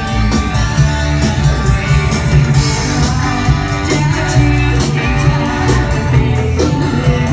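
Live band music: electric guitar over bass and drums, with a steady beat.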